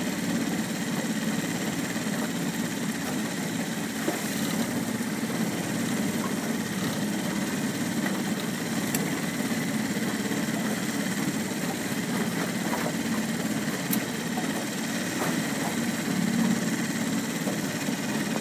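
A steady, even rumble like an idling engine, with a few faint clicks.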